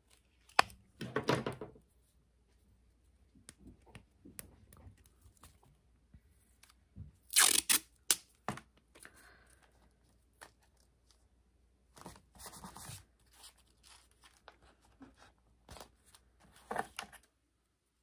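Patterned washi tape being pulled off its roll and torn, in several short rasping bursts, the loudest about halfway through, with quieter paper handling and rubbing between.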